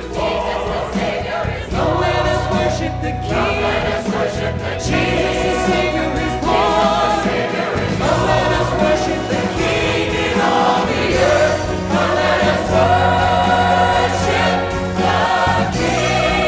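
Church choir singing with orchestral accompaniment, sustained chords over a steady bass.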